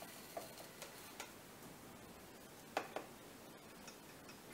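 A few light clicks and taps from a glass jar and a plastic measuring cup as dry breadcrumbs are poured from one into the other, over a low room hiss. The loudest are two quick clicks about three seconds in.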